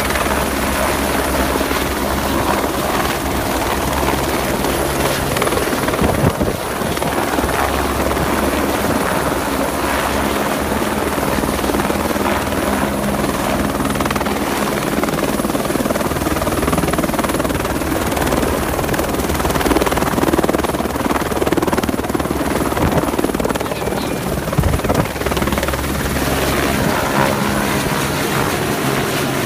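Eurocopter AS350 helicopter running steadily, very close, its rotor and turbine loud throughout as it sets down in the scrub and then lifts off overhead near the end.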